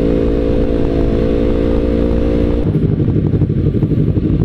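Motorcycle engine running at a steady speed on the move. About two and a half seconds in, it gives way suddenly to the rougher, uneven rumble of several sport bikes idling together.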